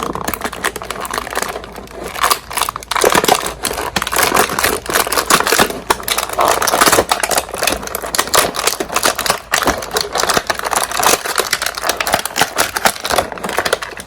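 Plastic action-figure packaging crinkling and crackling as the figure is worked out of its box and tray, a dense run of clicks and crackles.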